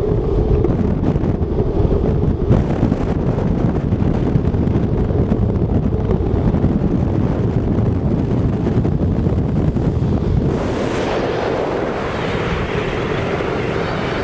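Wind buffeting the microphone at speed on a downhill skateboard run, a steady low rumble. About ten seconds in, it gives way to a lighter, hissier rush.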